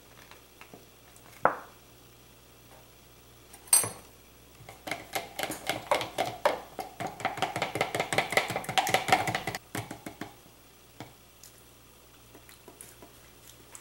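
Two sharp clicks, then a teaspoon stirring honey into barbecue sauce in a plastic deli container. It taps and scrapes against the container's sides in quick strokes, several a second, for about five seconds.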